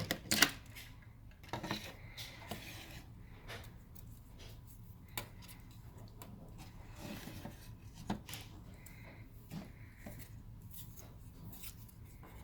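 Plastic housing and parts of a Mazda RX-8 climate control unit being handled and fitted back together, with scattered clicks, taps and rubbing and a sharper knock just after the start.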